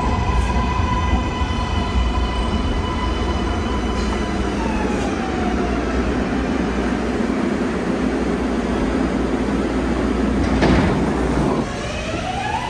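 MARTA subway train running into an underground station: a steady motor whine over the low rumble of the wheels, dropping in pitch about five seconds in as the train slows. Near the end comes a short burst of noise, then a train's motor whine rising in pitch as it pulls away.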